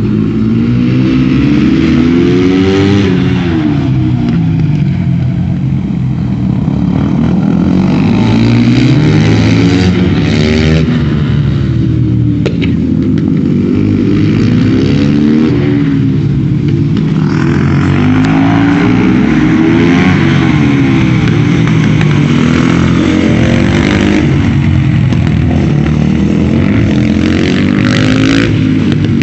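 Supermoto motorcycle engine being ridden hard around a track, its pitch climbing and dropping again and again as the rider accelerates out of corners, shifts and brakes into the next.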